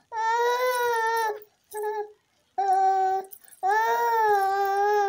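Baby crying in four drawn-out wails with short breaks between them, the last one the longest.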